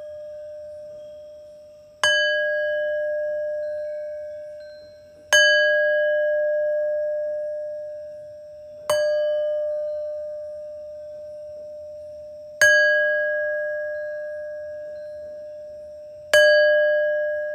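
A singing bowl struck five times, about every three and a half seconds. Each strike rings on in a steady low tone with higher overtones, fading slowly until the next strike.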